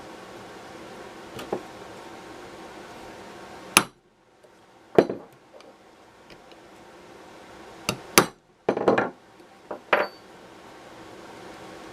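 Hammer striking a punch against a brass screwdriver ferrule held in a bench block, deepening the divots that tighten the loose ferrule onto its wooden handle. About eight sharp, irregularly spaced metallic knocks, with a small hiss in the background.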